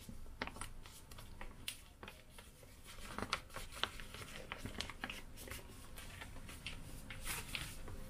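Flour poured in a thin stream into a stainless steel mixing bowl: a faint soft hiss with scattered light ticks and rustles.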